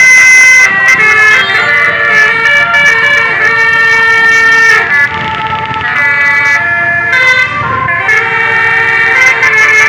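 Bus telolet horn: a set of air horns sounding several notes together and switching between them in a rapid tune. Loud, with a low vehicle rumble underneath.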